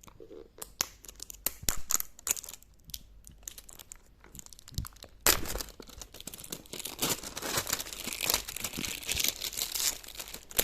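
Toy packaging being opened by hand. Scattered crackles and snaps in the first half give way, about halfway in, to steady crinkling and tearing of the wrapping.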